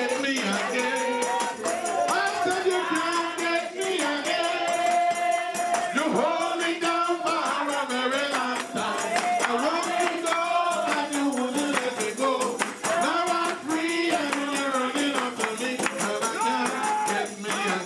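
Congregation singing a gospel worship song together, with rhythmic hand clapping and percussion keeping a steady beat.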